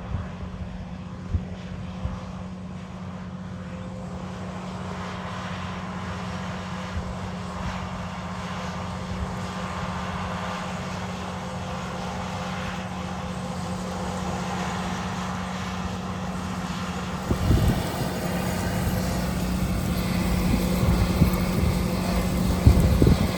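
Large farm tractor's diesel engine running under steady load with a steady drone, slowly growing louder. From about two-thirds of the way through, wind gusts buffet the microphone.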